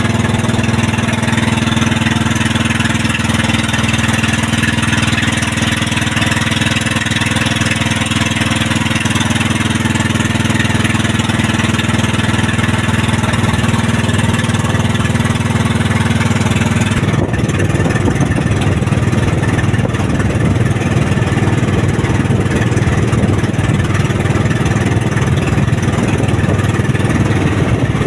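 Small inboard engine of a motorised outrigger boat (bangka) running steadily under way. About two-thirds of the way through, the even drone changes abruptly to a rougher, less steady noise.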